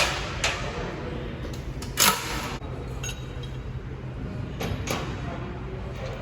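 Metal clinks and knocks of tools and engine parts being handled while unbolting parts under a diesel engine, with a louder short rattle about two seconds in, over a steady low hum.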